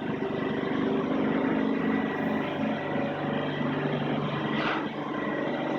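A steady engine drone, even in level, with a brief sharp sound about four and a half seconds in.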